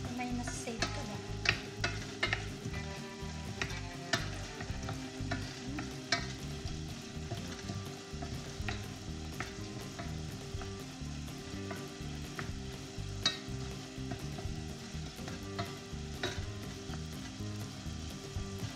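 Food frying in a pan with a steady sizzle, while a utensil stirs it and knocks against the pan every second or so.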